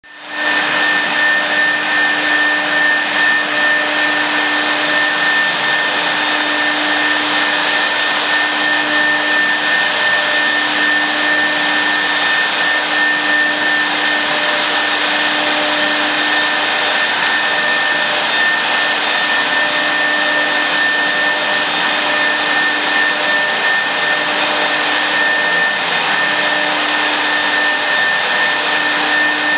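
CNC router machine running: a steady, even whine with a hiss behind it, unchanging throughout.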